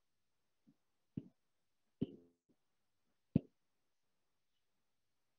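Near silence broken by three short pops spread over a couple of seconds, the last the loudest.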